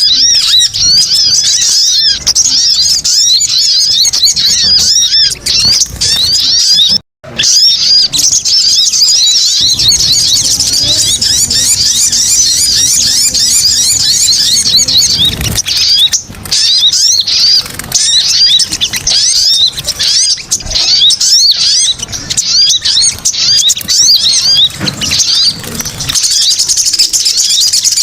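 Sogon (sogok ontong) birds calling in a noisy, excited chorus, as on a bird-lure track. Many rapid high chirps overlap in a continuous chatter, with a brief break about seven seconds in.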